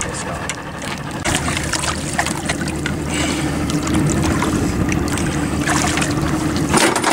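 Boat engine running steadily, a low hum that grows a little stronger partway through, with wind noise on the microphone and a few short sharp knocks and splashes.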